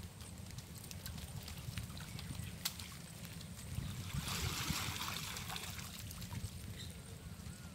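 Water trickling and splashing, with a louder swell of splashing about four seconds in, over a steady low rumble.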